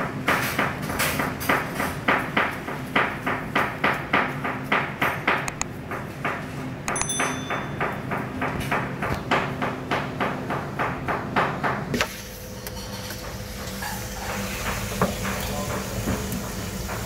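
Hands pressing and patting minced lamb onto a wide flat kebab skewer: a regular wet slapping, about two to three pats a second. It stops suddenly near the end, leaving a steady hum.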